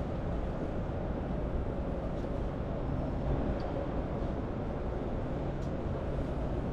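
Steady Manhattan street ambience: a continuous low rumble of traffic and city noise.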